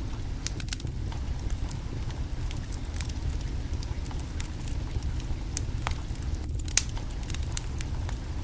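Wood fire crackling, with scattered sharp pops over a steady low rumble; one louder pop about two-thirds of the way through.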